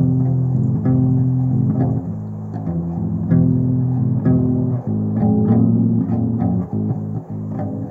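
Electric upright bass played with the fingers: a line of plucked low notes, one after another, with the click of each pluck.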